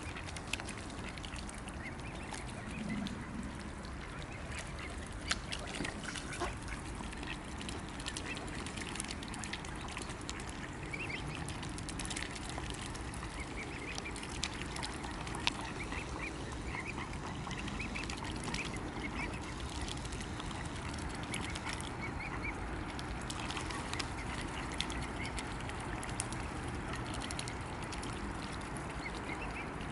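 Mute swans and their cygnets dabbling and feeding at the water's surface: many small bill clicks, nibbles and splashes, with soft waterfowl calls now and then.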